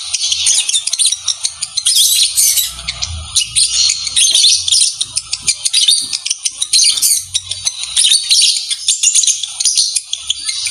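Fischer's lovebirds chattering rapidly and continuously, a dense stream of high, rattling chirps and clicks: the chatter of a pair mating.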